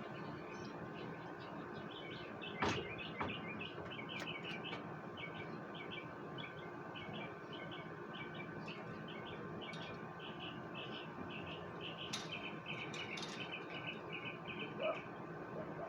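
Outdoor chirping: a steady run of short high chirps, several a second, over a faint steady hum, with two sharp clicks about 3 and 12 seconds in.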